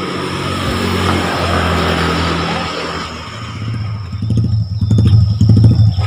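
A motor vehicle engine running steadily, joined from about three seconds in by a heavier, irregular low rumble.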